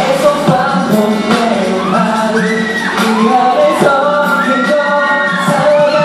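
K-pop dance track played loud over the PA with live male singing, and fans in the crowd shouting and screaming over it.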